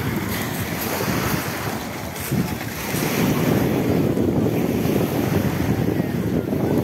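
Wind buffeting the microphone, a flickering low rumble that grows louder about three seconds in, over the wash of small waves on a pebble beach.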